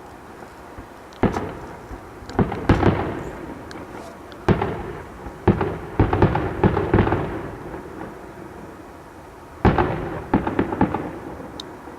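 Fireworks bursting overhead: a series of sharp booms, each trailing off in a rumbling echo. Single bangs come about a second and a quarter, two and a half and four and a half seconds in, with quick clusters of several bursts around six to seven seconds and again near the end.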